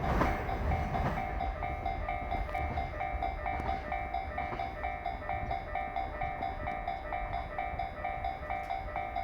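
Japanese level-crossing warning bell ringing in a steady repeating pattern, about two rings a second, over the low rumble of a passing freight train that slowly eases off.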